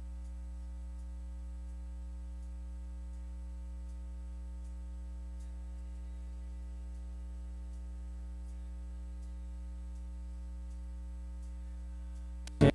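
Steady electrical mains hum with faint, regular ticking, as from a sound feed with the music dropped out. Guitar music cuts back in loudly right at the very end.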